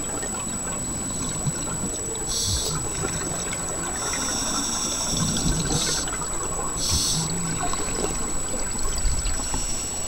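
Underwater sound of a scuba diver breathing through a regulator: short hissing inhalations every few seconds over a gurgling, bubbling water rumble, with a thin steady high whine.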